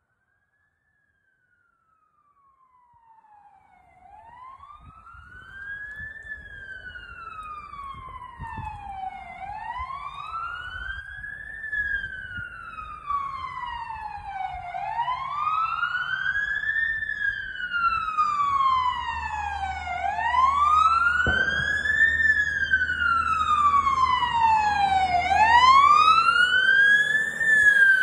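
Fire engine siren on a slow wail, rising and falling about every five seconds. It comes in faintly and grows steadily louder as the truck approaches.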